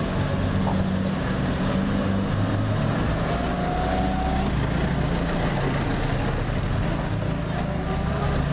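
Classic open-top sports cars driving slowly past on a street, their engines running with a steady low hum.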